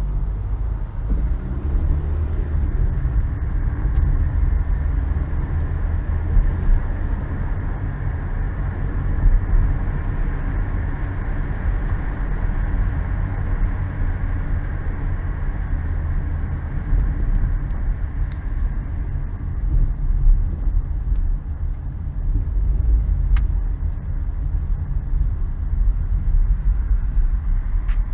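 A car driving along: steady engine and road rumble, deep and even, with no sudden events.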